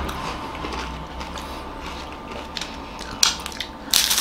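People eating ice cream from wafer cones: soft mouth sounds with a few sharp, crisp crunches of bitten cone about three and four seconds in.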